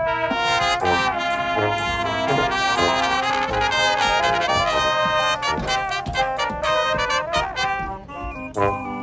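High school marching band playing full out: brass carrying loud held chords over sharp drum hits, which come thicker in the second half.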